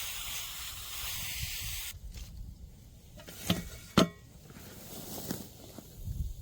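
A steady spraying hiss, like water from a garden hose, that cuts off suddenly about two seconds in. It is followed by two sharp knocks about half a second apart.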